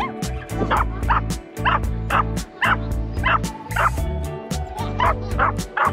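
A puppy yipping over and over, about two short high yips a second, over background music with a steady beat.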